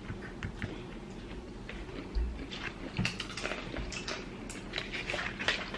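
Close-up eating sounds of boiled head-on shrimp being peeled by hand and chewed: small crackles of shell and wet mouth clicks, growing denser about halfway through. There is one dull thump about two seconds in.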